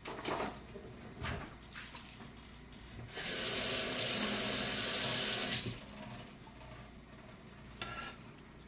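Kitchen faucet running for about two and a half seconds, starting about three seconds in and shutting off abruptly, after a few light knocks. Near the end a spoon clinks briefly against the metal pot of greens.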